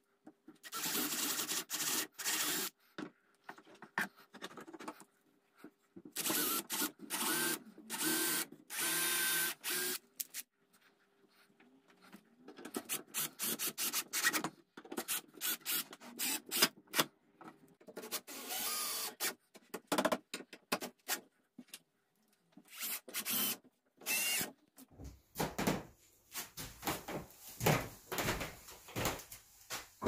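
Cordless drill-driver running in short trigger bursts, drilling a pilot hole into a clamped wooden post and then driving a screw into it, with a pause in between. Scattered knocks of handling follow near the end.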